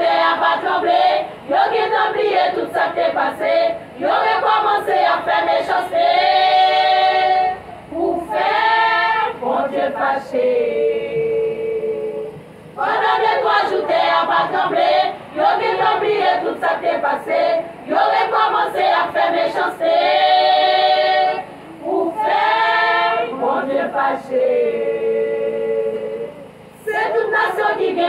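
Women's choir singing a hymn together, in sung phrases separated by short pauses; the same run of phrases comes round again about halfway through.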